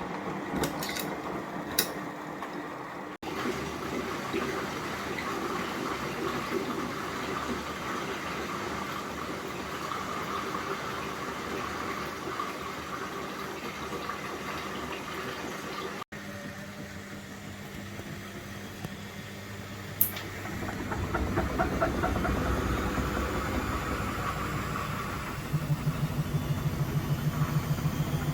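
Old Beko washing machine running through its rinse cycle with a steady mechanical hum. It grows louder about two-thirds of the way in, and a fast, even pulsing starts near the end. A sharp click comes about twenty seconds in.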